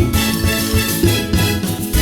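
Upbeat background music with a steady beat of bass notes and keyboard-like melody.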